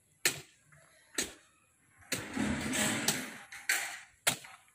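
Long-handled hoe chopping into hard, dry soil: three sharp strikes, with a longer rough scraping noise between the second and third.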